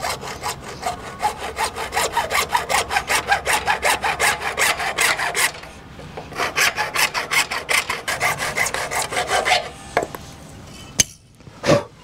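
Hand saw cutting through PVC drain pipe in quick, even back-and-forth strokes. There are two runs of strokes with a brief pause between them, and the strokes stop about nine and a half seconds in. A sharp click and a knock follow near the end.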